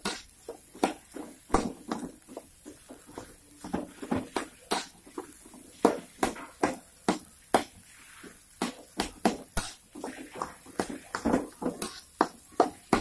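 Spatula knocking and scraping against a steel wok while stir-frying rice and egg: irregular sharp clacks, a few per second, with a brief lull about eight seconds in.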